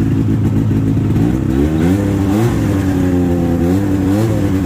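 1994 Ski-Doo Safari L snowmobile's two-stroke engine idling, then revved twice with the handlebar throttle, its pitch climbing and dropping back each time.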